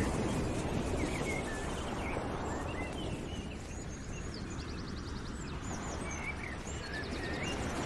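Birds chirping, with short calls and a couple of quick trills, over a steady low rushing noise, like an outdoor nature ambience.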